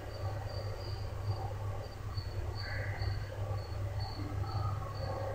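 Quiet background of the recording room: a steady low hum with short, high-pitched chirps repeating at uneven intervals, about two a second.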